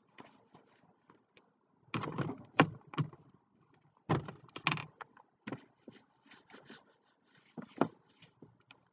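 Small paint roller at work: faint rubbing and ticking as it is rolled over the painting board, broken by two clusters of loud clatter and knocks, about two and four seconds in, as the roller and its wire frame are worked in the paint tray. A couple more sharp knocks come near the end.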